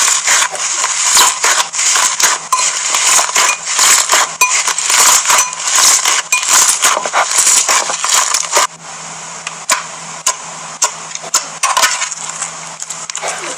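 Slime mixed with metallic flakes being kneaded and squeezed by hand, a dense crackle of wet clicks and pops. About nine seconds in it cuts to a quieter, sparser run of clicks and pops as a clear slime is stretched.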